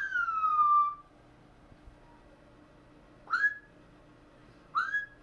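Three whistled notes: a long note sliding down at the start, then two short upward-flicking notes about 3 and 5 seconds in.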